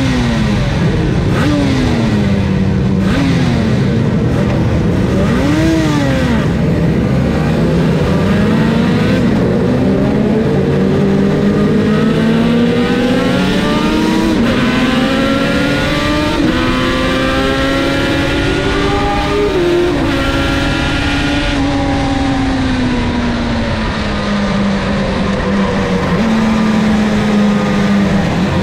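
Two-stroke race motorcycle with Martin Johnson expansion-chamber pipes, heard from onboard: the engine is blipped several times in quick rises and falls, then accelerates through the gears, its pitch climbing and dropping at each shift, over a steady rush of wind.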